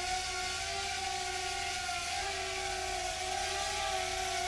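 WLToys Q242 mini quadcopter's motors and propellers whirring in flight: a steady buzzing whine that holds nearly the same pitch, wavering only slightly.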